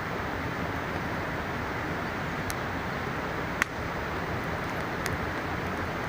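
Steady rush of a mountain river with a small campfire crackling over it: three sharp pops, the loudest about halfway through.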